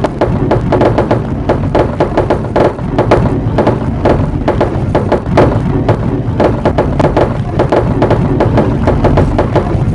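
Glass marbles rolling and clattering along a marble run: a dense, irregular run of clicks and clacks with a short ringing tone, over a steady low rolling rumble.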